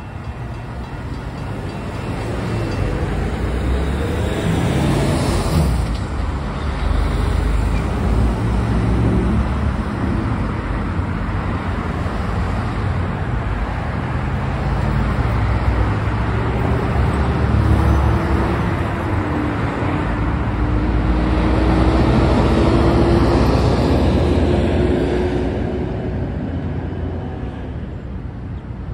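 Road traffic: cars and pickup trucks passing, with the noise swelling as the heavier bunches go by about a quarter and three-quarters of the way through. In the second half one engine note rises steadily in pitch as a vehicle accelerates.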